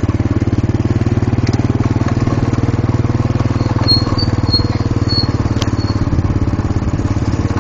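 Motorcycle engine running steadily at an even, low speed, with a fast regular firing pulse.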